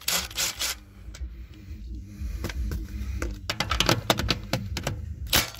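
Makita cordless impact wrench hammering on full power in short bursts of rapid clicks, loosening a car's wheel bolts.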